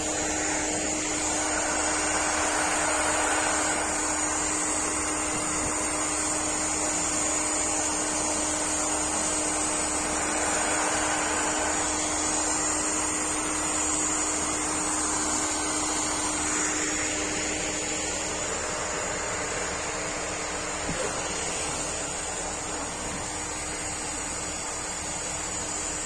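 Hair dryer running steadily, blowing through a border collie's long coat: a constant rushing hum with a high whine.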